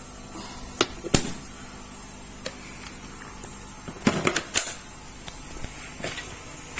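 Corded bagless cyclonic vacuum cleaner running steadily at maximum power: a steady hum with a high whine over it. Sharp clicks come about a second in and again near the end, with a short clatter of knocks around the middle.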